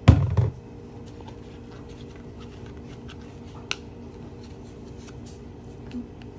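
A loud handling bump right at the start, then faint scattered clicks and light rubbing over a steady low hum.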